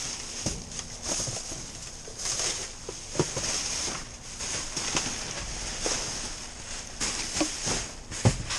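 Plastic trash bags and bubble wrap rustling and crinkling as gloved hands dig through a dumpster, with scattered sharp knocks as things shift and bump.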